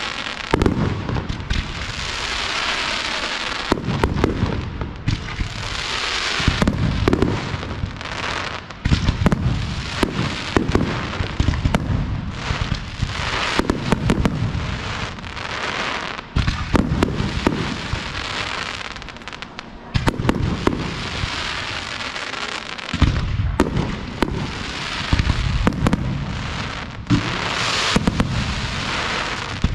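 Fireworks display: aerial shells bursting in a rapid run of sharp bangs and deep booms, with crackling effects between them.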